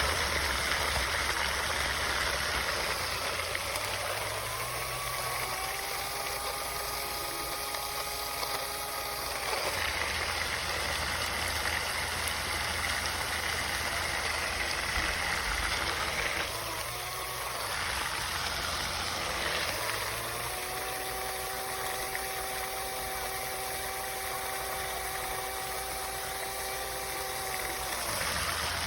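Small electric motor of a portable USB blender running twice: each time it spins up, holds a steady whine for several seconds and winds down, the second run about twice as long as the first. A continuous hiss like running water sounds throughout.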